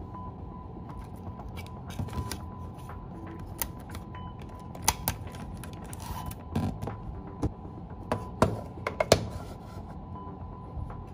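Plastic clicks and scrapes of a Super 8 film cartridge being handled while film is drawn out through its gate. The clicks come irregularly, with a few sharp ones about five seconds in and the loudest between eight and nine seconds in.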